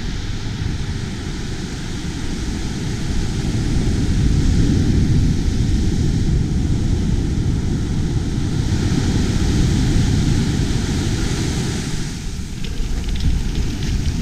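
Wind buffeting the microphone in a steady low rumble, mixed with the hiss of surf breaking along a sandy beach; it swells a few seconds in and dips briefly near the end.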